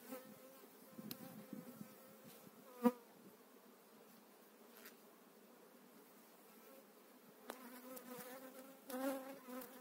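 Honeybees buzzing around an open hive, a faint steady hum, growing louder near the end. A sharp knock about three seconds in comes from the metal hive tool prying wooden frames loose.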